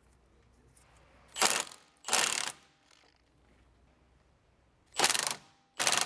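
Cordless impact wrench hammering in short bursts, four times in two pairs, on the 24 mm bolt head while the 21 mm nut is counter-held: breaking loose the bolt that joins the strut to the control arm.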